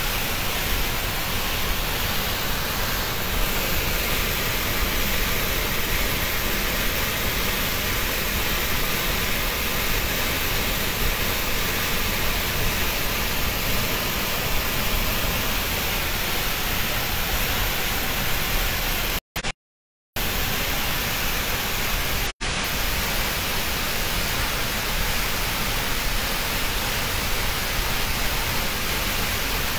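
Water jetting from an opened dam sluice valve into the river below: a steady, even rush of water. The sound cuts out briefly twice, for less than a second each time, about two-thirds of the way through.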